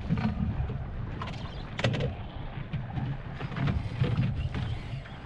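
Wind buffeting the microphone and water slapping against a small boat's hull, with scattered sharp clicks and knocks, the loudest about two seconds in.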